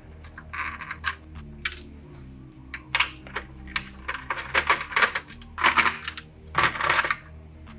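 Irregular small clicks, taps and scraping of plastic and metal as wire connectors are worked loose from a DVD player's circuit board with a thin hand tool. The clicks come in clusters, busiest in the second half.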